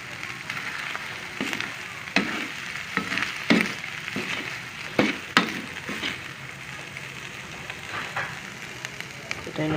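Corned beef frying in butter in a pan, now cooked through, with a steady sizzle. Scattered sharp clicks and knocks run through the sizzle.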